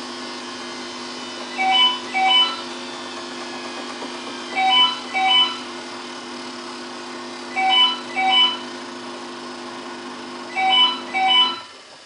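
Samsung WF8804RPA front-loading washing machine giving a steady hum. A pair of two-note electronic beeps repeats about every three seconds, four times. The hum cuts off near the end.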